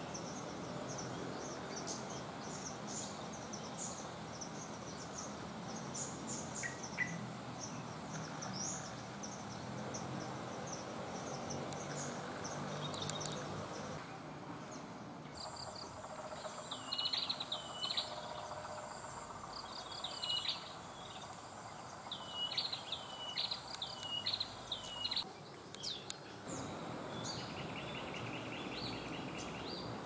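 Small birds calling in quick high chirps over a steady outdoor hiss. About halfway through, a steady, very high insect whine starts and lasts about ten seconds, while a bird gives about ten short, sharply falling calls.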